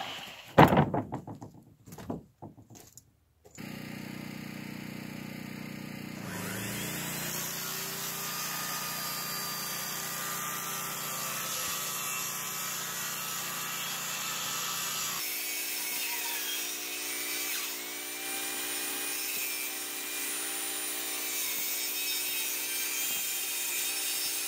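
A few knocks as a plywood sheet is handled. Then a compact circular saw runs for about twenty seconds, cutting T1-11 plywood siding panels to size.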